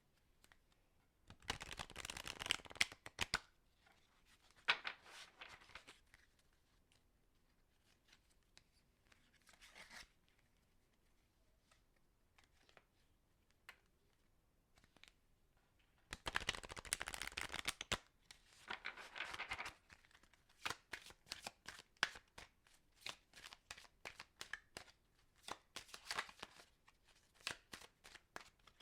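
A deck of playing cards being shuffled in several bursts of rapid, fluttering clicks. In the last third these give way to a run of separate, sharp single clicks.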